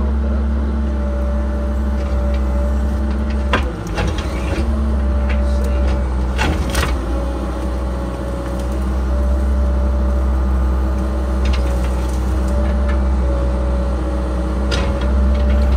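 Cat 306 mini excavator's diesel engine running steadily under load, heard from inside the cab, with a steady whine over the engine drone. A few sharp knocks and clatters break through, the loudest about six to seven seconds in, as the arm works in the brush.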